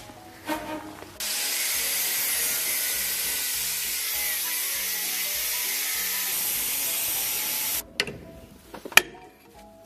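Angle grinder cutting a hole in the metal barrel pipe, a steady, loud grinding hiss that starts about a second in and cuts off suddenly after about six and a half seconds. A few sharp metal knocks follow as the pipe is handled.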